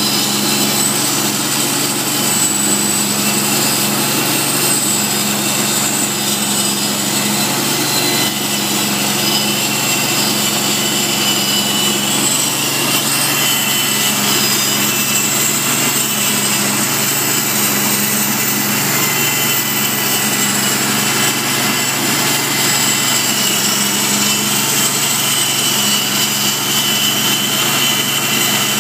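Custom-built six-foot band saw mill running steadily as its blade cuts lengthwise through a fir log: a constant machine drone with high, steady whining tones on top.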